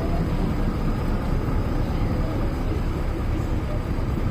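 Steady low rumbling noise of wind and sea surf, with no distinct wave breaks or other events.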